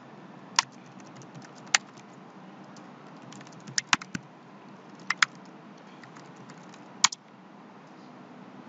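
Computer keyboard being typed on: quick runs of key clicks with a few louder keystrokes standing out, stopping about seven seconds in.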